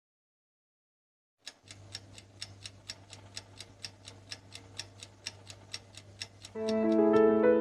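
Clock ticking sound effect: after a second and a half of silence, fast even ticks, about five a second, over a low hum. Piano music comes in near the end, louder than the ticking.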